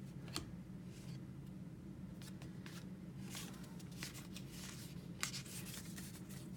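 Baseball trading cards being handled and flipped through: faint scattered slides and ticks of card stock over a steady low hum.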